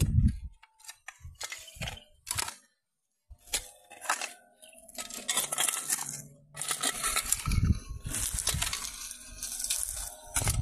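A hoe blade chopping and scraping into loose dirt in irregular strokes, with crunches and small clinks, and a brief silent gap about three seconds in.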